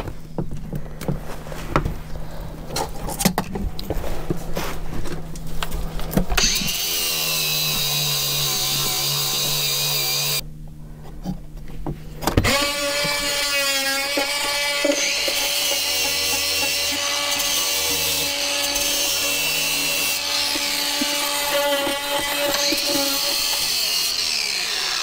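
Angle grinder sanding down a boat's wooden frame, dressing off the timber, running steadily, stopping for about two seconds and starting again. Irregular scraping and clicking come before it, for the first six seconds or so.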